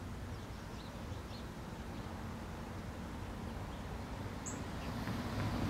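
Steady rain falling on tree foliage, with a low rumble underneath that grows louder near the end and a few faint bird chirps in the first second or so.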